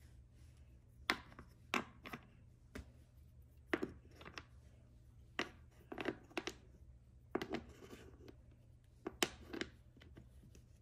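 Wooden toy pieces knocking and clacking together as they are handled: short hard knocks, often two or three in quick succession, every second or so, over a low steady hum.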